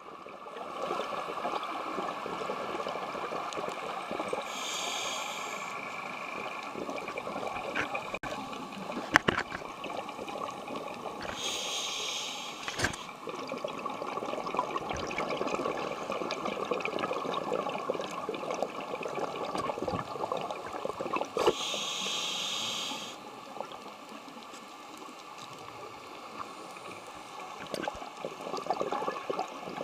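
Underwater sound through a camera housing: a steady watery hiss with a few sharp clicks, and a scuba diver's regulator breathing in three hissing bursts several seconds apart.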